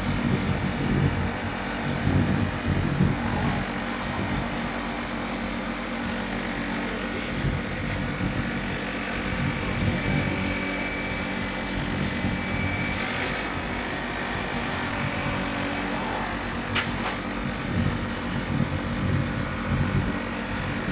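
Compact tractor's engine running steadily at road speed while the tractor drives along, with a gusty low rumble of wind on the microphone. A single sharp click sounds near the end.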